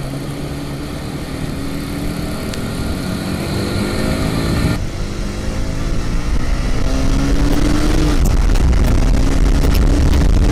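Honda CBR150R's single-cylinder engine pulling up through the gears: its pitch climbs, drops at a shift about five seconds in and again about eight seconds in, then climbs again. Wind rush on the helmet microphone grows steadily louder as the bike gathers speed.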